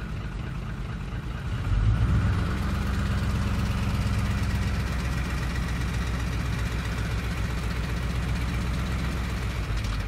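Ford 5.4-litre three-valve Triton V8 in a 2004 F-150, heard at the front wheel well, idling in drive and then given light throttle about two seconds in, its note stepping up and holding. The rattling knock under light throttle is phaser oscillation: the cam phasers unlock and jump around on low, inconsistent oil pressure or weak return springs.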